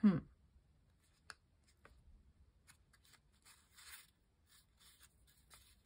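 Faint rustling and a few small clicks of thick folded paper being handled, after a short falling 'hmm' of voice at the very start.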